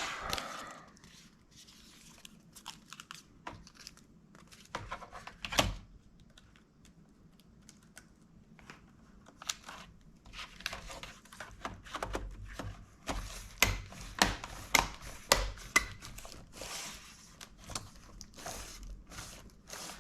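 Sharp plastic clicks, snaps and crackles from the parts of a Dell Inspiron 15 3000 laptop being handled and pressed into place during reassembly. A quicker, louder run of snaps comes about two thirds of the way through.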